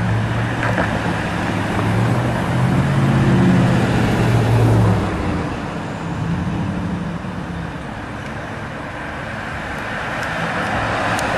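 Road traffic on a busy street: cars passing, with a vehicle's low engine hum that swells over the first five seconds and then fades to a softer traffic hiss.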